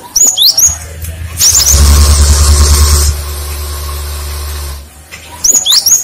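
Cinereous tit (gelatik batu) calling in short, sharp, high whistled notes, in quick groups at the start, about a second and a half in, and again near the end. Between the groups there are a few seconds of loud rushing noise with a low rumble.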